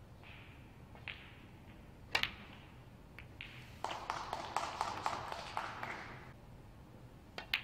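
Snooker balls clicking: a sharp click of the cue on the cue ball about two seconds in, with further ball clicks around it, then about two and a half seconds of crowd applause as a red is potted.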